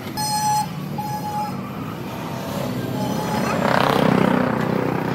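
Road traffic: two short horn honks in the first second and a half, then a vehicle passing close by, loudest about four seconds in, over a steady traffic hum.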